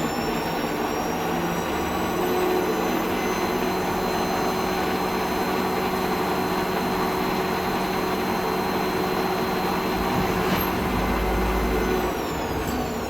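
Bernardo Profi 550 WQV mini metal lathe running under its 750 W motor with no load, a steady mechanical hum with high whining tones from the drive, spindle near 950 RPM. Near the end the whine slides down in pitch as the lathe starts to wind down.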